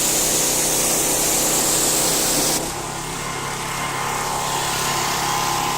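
Generac 3100 PSI gas pressure washer running at full throttle, its jet spraying with a loud hiss. About halfway through, the spray cuts off suddenly and the engine keeps running steadily.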